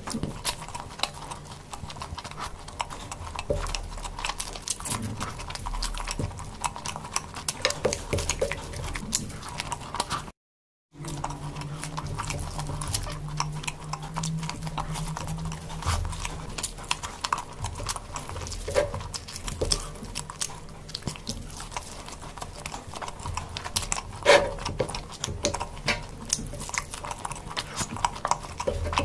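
Wet chewing and mouth sounds of someone eating rice and curry by hand, a dense run of small clicks and squelches. The sound cuts out completely for about half a second near the middle.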